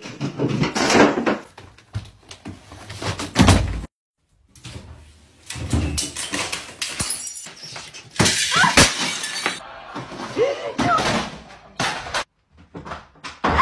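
A run of household objects being knocked over by cats, crashing and clattering to the floor with breaking sounds, in several short separate scenes.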